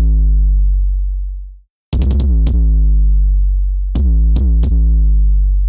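Synthesized 808-style kick drum from FabFilter Volcano 3, its boom made by a self-oscillating filter. A long, low sustained boom fades out, then two quick groups of three kicks follow, about two and four seconds in. Each kick opens with a click and a brief drop in pitch into the deep boom.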